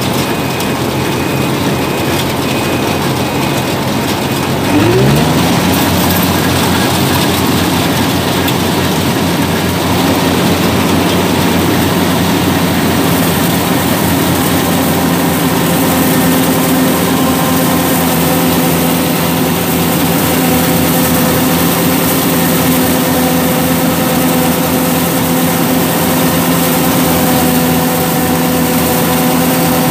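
Yanmar 850 rice combine harvester's diesel engine and threshing machinery running steadily, close up from the driver's seat. About five seconds in, the engine revs up and the machine gets louder, then holds a steady working drone while cutting rice. A high intermittent beep sounds for the first few seconds.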